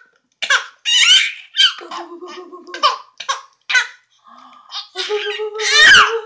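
Baby girl laughing in a string of short, high-pitched giggles, loudest about six seconds in.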